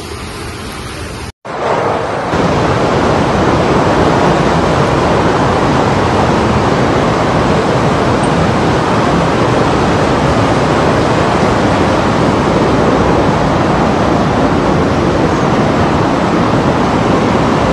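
Floodwater rushing through a street in a fast, turbulent torrent: a loud, steady rushing noise that starts after a short break about a second and a half in.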